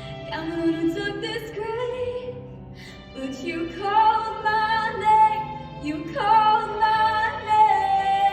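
A woman singing solo with vibrato, holding long notes, over instrumental accompaniment.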